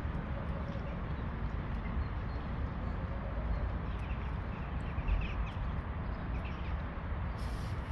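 Steady outdoor background rumble, with a few faint bird chirps about halfway through.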